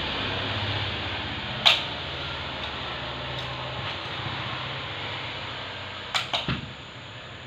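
A steady low hum with a sharp click about two seconds in and a quick run of three knocks near the end, which quiets slightly afterwards.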